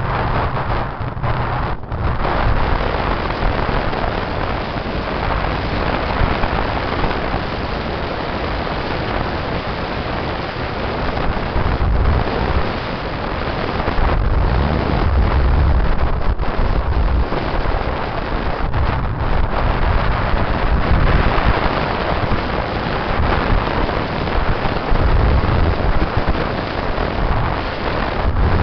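Wind rushing over the microphone and road noise from a vehicle driving along at speed, with an uneven low rumble that swells and eases.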